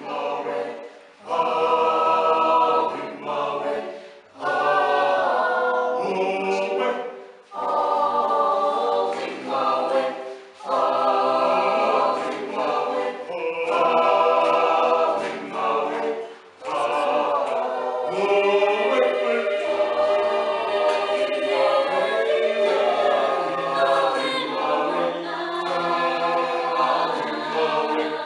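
Choral music: a choir singing in phrases, with short pauses between phrases in the first half, then singing without a break.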